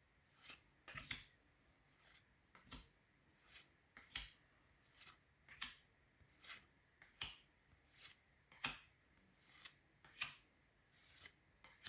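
Pokémon trading cards being slid off a stack one at a time, a faint run of short crisp swishes about one to two a second.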